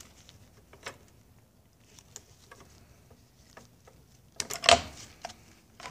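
Gloved hands working on an outboard's ignition wiring and parts: scattered small clicks and rattles, with one louder clattering rustle about four and a half seconds in.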